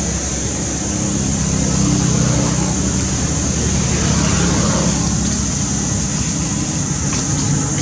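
Steady engine-like rumble of motor traffic, with a constant high-pitched hiss above it.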